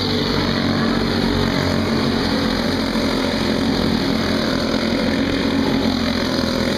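Several junior go-kart engines running steadily at racing speed as a pack of karts circulates the track, their drone blending into one continuous sound.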